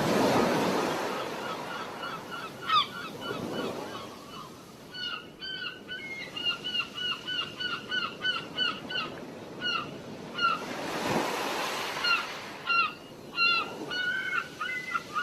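Birds calling, short repeated notes coming in runs of several a second, over the rush of waves and wind.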